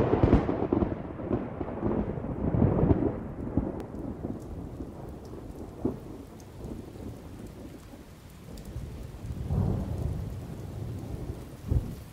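Thunderstorm: steady rain under rolling thunder. A loud thunderclap opens it and rumbles on for about three seconds, and a second, softer roll of thunder comes about ten seconds in.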